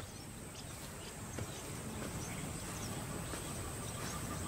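A steady, high-pitched insect drone, with scattered soft crunches of lions' paws stepping through dry grass.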